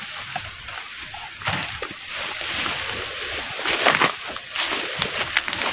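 Footsteps swishing through tall grass and undergrowth, with leaves and stems rustling and a few sharp crackles of snapping stems.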